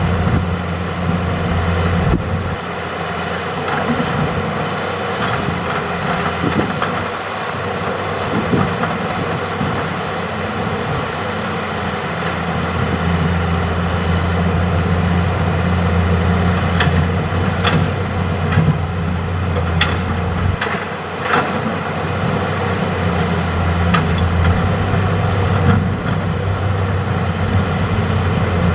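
Hitachi hydraulic excavator's diesel engine running steadily as it works, its note dropping briefly twice, with a few sharp clanks in the second half.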